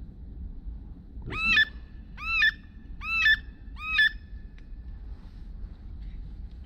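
Duck call blown in four quacks, each note rising then falling in pitch and swelling in loudness, a little under a second apart.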